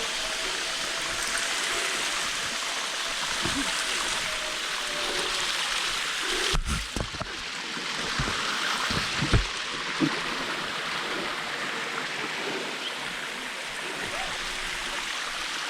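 Rushing water of a mountain stream and waterfall, a steady hiss, with a few dull bumps near the middle.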